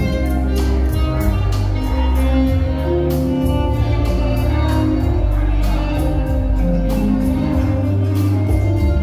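Music with a steady beat and heavy bass.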